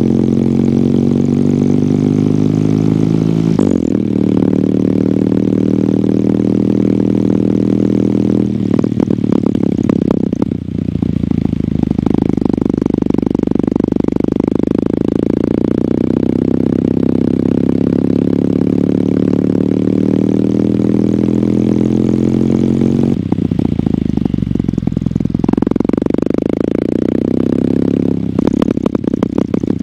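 Kawasaki W800's air-cooled parallel-twin engine with its stock exhaust, pulling under way. Its pitch climbs and falls back several times as the bike accelerates and the gears change.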